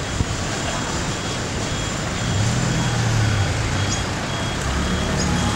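Street traffic with a vehicle engine running, its low hum louder from about two seconds in, over a faint high beep repeating about twice a second.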